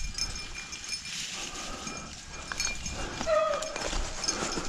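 Rabbit hounds running a track, giving short, faint bays, the clearest a brief falling howl about three seconds in, over footsteps through leaves and brush.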